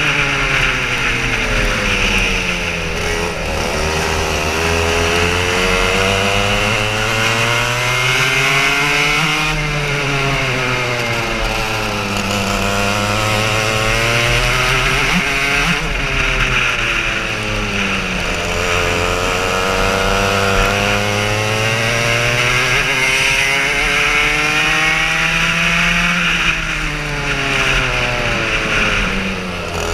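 Racing kart engine heard from on board, revving up along the straights and dropping in pitch for the corners, several times over, with a steady rushing hiss beneath it.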